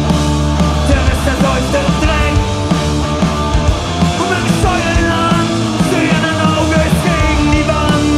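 Live rock band playing loud and steady: electric guitars, bass guitar and a drum kit.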